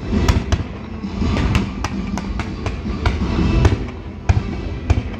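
Fireworks display going off: a dozen or so sharp bangs and cracks over a continuous low rumble of launches and bursts, with music playing along.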